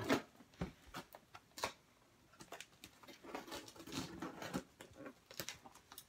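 Cardboard boxes being cut open with scissors: scattered snips and taps, with softer scraping and rustling of cardboard and tape in between.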